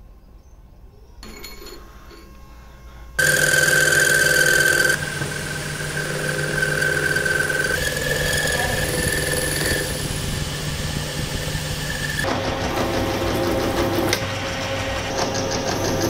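Metal lathe turning a steel rod. The tool bit cutting the metal gives a steady high-pitched squeal over the machine's running. The squeal comes in abruptly about three seconds in, and the sound changes character about twelve seconds in as the cut on a threaded rod begins.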